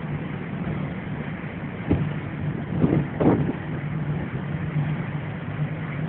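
Boat engine running with a steady low drone, with a few louder short sounds about two and three seconds in.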